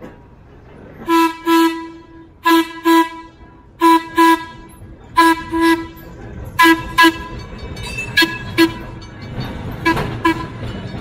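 Horn on a vintage green streetcar work car sounding short toots in pairs, seven pairs a second or so apart, as the car rolls past with a low wheel rumble building near the end.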